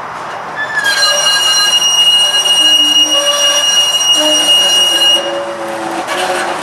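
Flexity Outlook streetcar's steel wheels squealing on the tight curve of a turning loop: a loud, steady, high squeal starting about a second in and breaking off after about four seconds, with lower shifting tones under it, then lighter rail clatter near the end.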